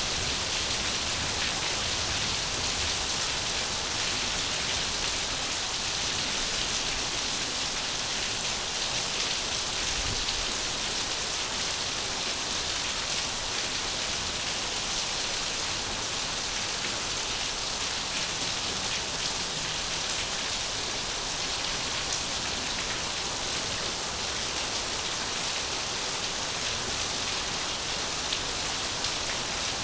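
Steady rain falling, an even hiss of many small drops with no change in strength.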